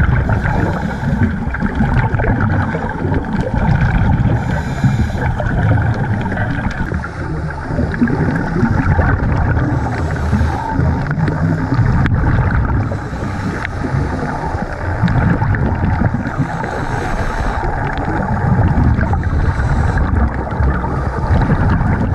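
Underwater sound picked up by a diving camera: a steady, muffled water rumble, with a gurgling gush of scuba exhaust bubbles every few seconds.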